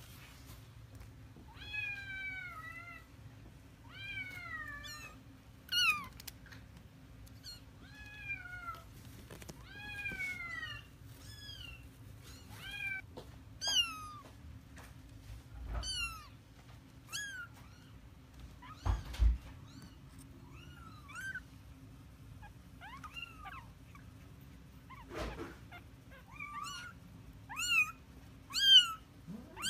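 Very young Bengal kittens meowing again and again while being picked up and handled: short, high-pitched calls that fall in pitch, the loudest coming near the end. A few low thumps fall in between.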